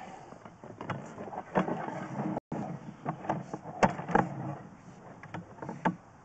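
Sewer inspection camera head and push cable knocking and scraping irregularly against the cleanout and pipe as they are fed in, with scattered sharp clicks and knocks.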